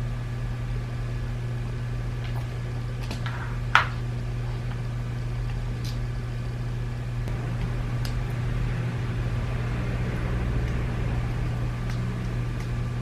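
Scattered small clicks and taps of the plastic parts of a BMW iDrive controller being handled and taken apart, one sharper click just under four seconds in, over a steady low hum.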